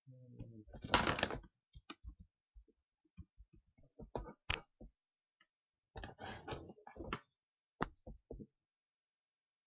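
Computer keyboard keys and clicks tapped in short irregular runs, with a brief louder rustle about a second in: typing a search for the calculator app and entering numbers into it.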